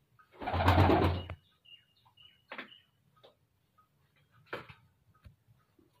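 Domestic pigeon cooing loudly close by for about a second, followed by a few faint short high chirps and soft taps.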